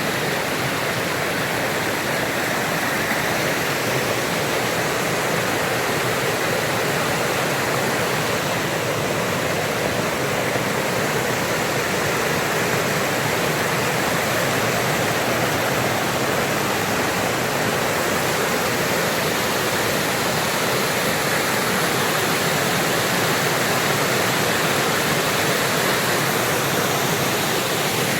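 Waterfall: a steady rush of water falling over a rock ledge of about 30 to 40 feet, with the smaller cascades beside it, unchanging throughout.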